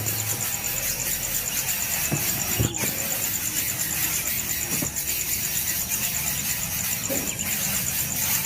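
Nestling birds begging for food: continuous high-pitched squealing calls, steady throughout with a few faint knocks.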